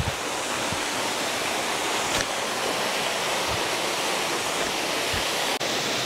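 Steady rushing of a waterfall, with a few soft low thumps.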